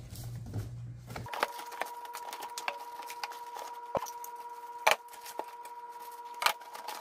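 Cardboard shipping box and plastic-wrapped parts being handled: scattered rustles, crinkles and soft knocks, with a few sharper clacks.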